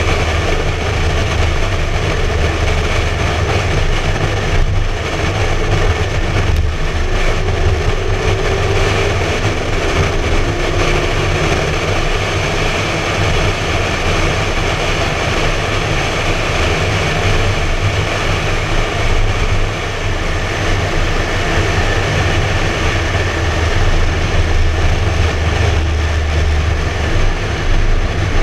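McLaren 12C Spider's twin-turbo V8 droning steadily at highway cruising speed with the roof down, under a constant rush of wind and tyre noise, heard from a camera on the outside of the car with wind on the microphone.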